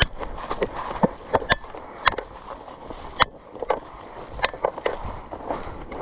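Footsteps of people running through dry forest litter, with irregular sharp snaps and crackles of twigs and sticks breaking underfoot over a rustle of leaves.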